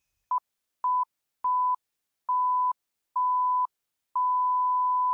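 An electronic beep sound effect: one steady pure tone sounded six times, each beep longer than the one before, the last held on. It is laid over a 'public service announcement' title card.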